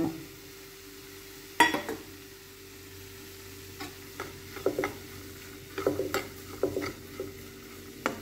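Steel spoon stirring cooked green gram and sugar in a nonstick pan, with a faint sizzle from the hot pan. There is one sharp clink of the spoon on the pan about one and a half seconds in, then repeated short scrapes and knocks from about four seconds on.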